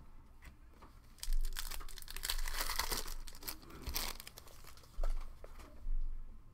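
Shiny foil trading-card pack crinkling and tearing as it is ripped open by hand, the crackle running for about three seconds, followed by two short bumps as the cards are handled.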